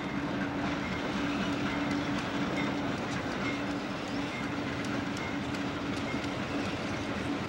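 Conrail GE diesel locomotives hauling a freight train past, a steady engine drone with the clicking of wheels over the rails.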